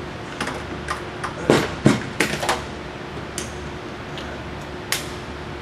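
Hand tools clicking and knocking on metal while working at a wheel hub, with a few louder clanks between about one and a half and two and a half seconds in and one more near the end, over a faint steady hum.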